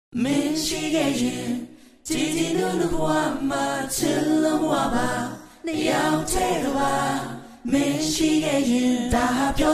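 Music: a group of voices singing a song in sustained phrases, with short breaks between phrases.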